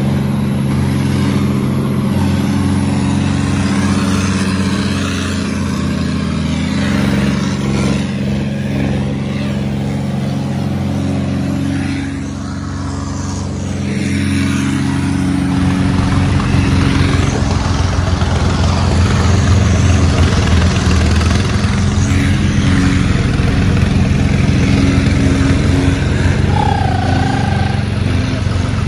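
Farm tractor's diesel engine running steadily under way, heard from the driver's seat. The engine note shifts about halfway through, going deeper and heavier.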